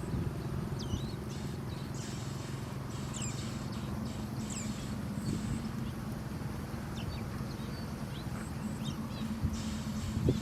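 Young sparrows chirping: scattered short, high calls that sweep downward, with a few brief bursts of hissing, over a steady low hum.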